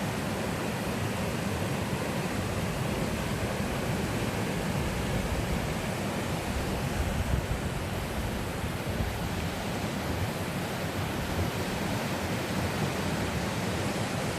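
Steady rush of running water, an even hiss with no pauses or rhythm.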